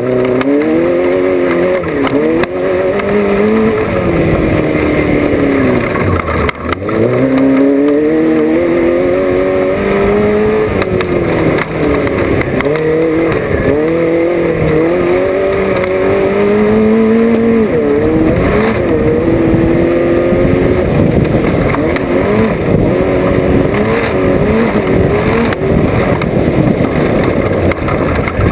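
Off-road race car's engine, heard on board, revving up and down as it is driven hard, the pitch rising and falling every second or two with a deep drop in revs about six seconds in. Constant rattling and knocking runs under it.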